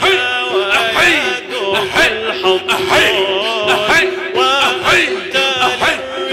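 Male voice chanting an Arabic devotional song in praise of the Prophet, the melody sliding up and down in long melismatic phrases over a steady held note.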